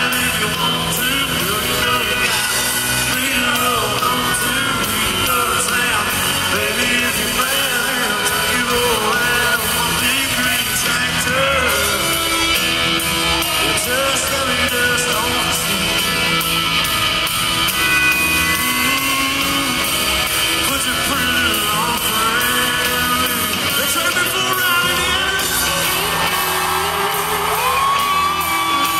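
Live country band with lead vocals playing over an arena's PA, heard from high in the stands with the hall's echo and yells from the crowd. A long held note comes in near the end.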